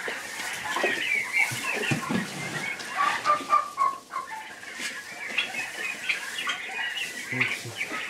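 A flock of young Big-6 turkey poults, about forty days old, peeping and chirping in many short, high calls, with a few knocks from handling at the feeder.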